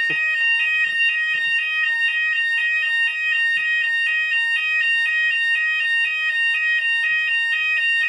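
Fire alarm sounders going off in full alarm, triggered by a smoke test of an addressable smoke detector: one high steady tone together with a two-tone warble alternating about four times a second.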